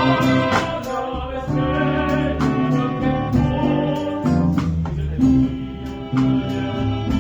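A Catalan cobla band playing, with sustained wind and brass chords over a bass line and short regular drum strokes.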